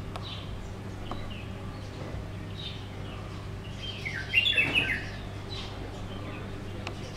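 Small birds chirping here and there over a faint low hum, with a short burst of loud, rapid chirps about four seconds in.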